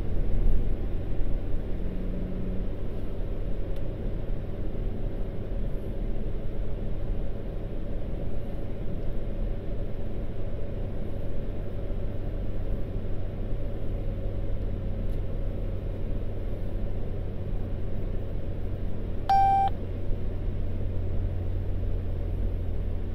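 Steady low rumble of road and engine noise inside a moving car. Near the end, a single short electronic beep.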